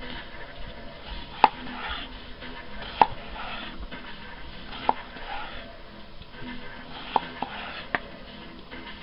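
Kitchen knife slicing red potatoes on a cutting board: six sharp taps of the blade on the board at uneven intervals, two of them in quick succession near the end, with soft cutting sounds between.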